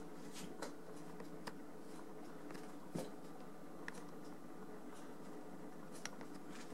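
Quiet indoor room tone: a steady low hum with a few faint, scattered clicks and taps.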